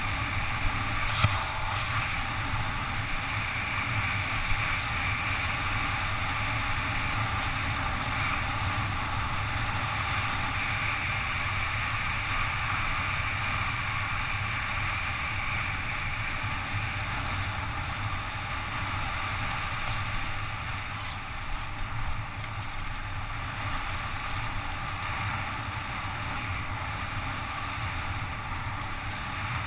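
Steady wind rush buffeting a helmet-mounted action camera's microphone during a fast downhill bicycle ride, mixed with tyre noise on asphalt. A few brief knocks come in the first five seconds.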